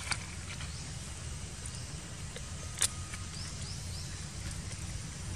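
Outdoor ambience: a steady low rumble, two sharp clicks about two and a half seconds apart, and a few faint, short, high rising chirps.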